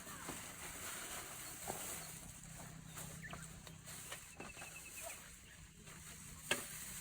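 Faint outdoor background with a short run of quick, high chirps from a bird about four seconds in. A few light clicks are heard, the sharpest near the end.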